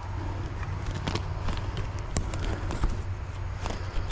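Scattered snaps and crackles of dry twigs and dead brush being stepped on and handled, over a steady low rumble.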